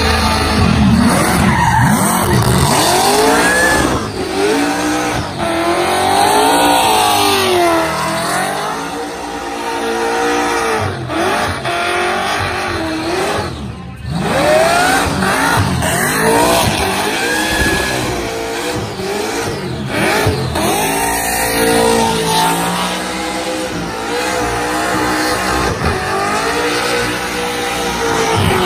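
Burnout car's engine revving hard at high rpm, its pitch sweeping up and down again and again as the rear tyres spin and squeal. The whole sound is loud, and it dips briefly about halfway through before the car comes back on the throttle.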